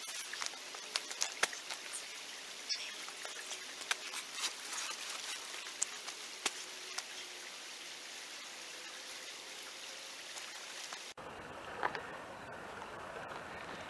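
Footsteps crunching on gravel and a paper sack of cement set down on crushed rock: a string of sharp clicks and knocks over the first several seconds, over a steady hiss.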